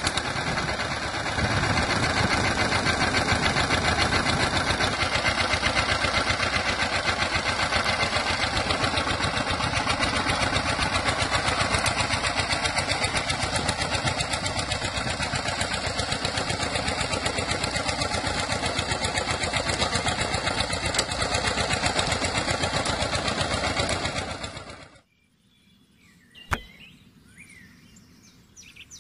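Small electric motor and drive of a homemade toy tractor running steadily with a fast, even rattling whir. It cuts off abruptly near the end, leaving a single click and faint bird chirps.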